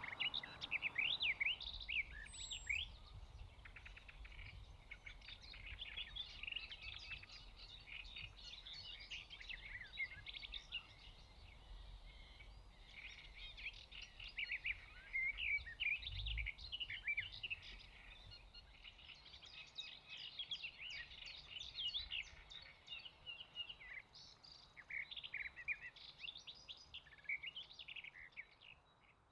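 Birds chirping and singing, many quick overlapping calls, over a faint low rumble; it fades out near the end.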